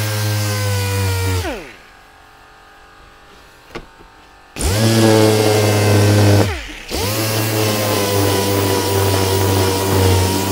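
Power sander with 180-grit paper sanding filled scratches on a plastic wheel trim. It is switched off about 1.5 s in and spins down in falling pitch, a single click follows, then it starts up again. It eases off once more briefly and picks back up, running steadily.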